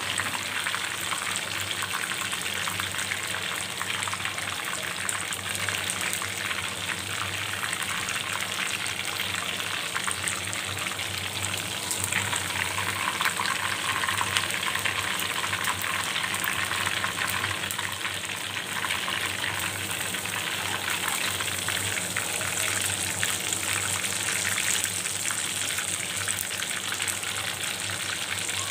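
Hot oil in a deep karahi sizzling and crackling steadily as the finished chicken and potato pieces are deep-fried and lifted out with a slotted steel skimmer.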